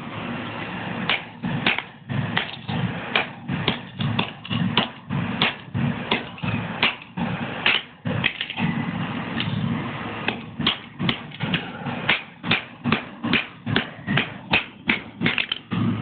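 A small plastic LCD alarm clock being smashed with repeated sharp blows, about two to three strikes a second, coming faster in the second half.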